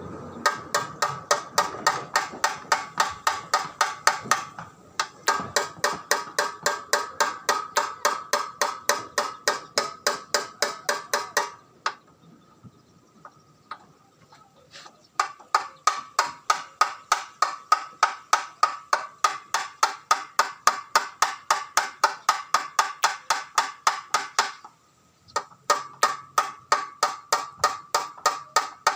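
A hammer striking metal in fast, even runs of about four blows a second, each blow ringing at the same pitch. There are short breaks about 5 and 25 seconds in and a longer pause of a few seconds near the middle with only a couple of light taps.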